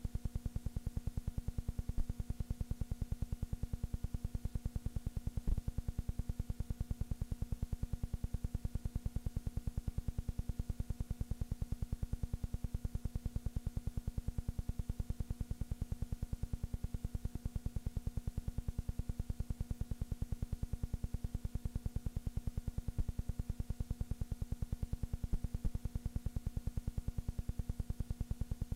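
Steady low electrical hum with a fast, even pulsing buzz under it and a few faint clicks.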